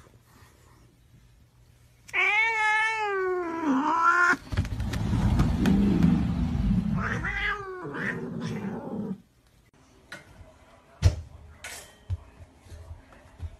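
A domestic cat yowling: a long wavering call about two seconds in, then a lower, rougher stretch with another rising-and-falling call, stopping about nine seconds in. A few faint clicks follow near the end.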